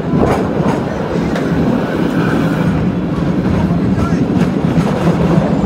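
San Francisco cable car running along its track: a steady rumble and clatter of wheels on the rails under a constant hum, with scattered sharp clicks.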